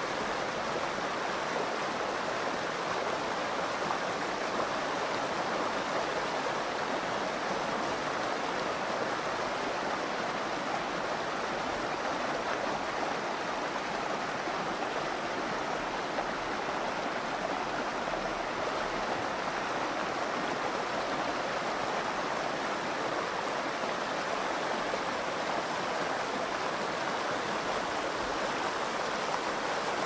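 Shallow river flowing and splashing over rocks in a riffle, a steady, even rush of water.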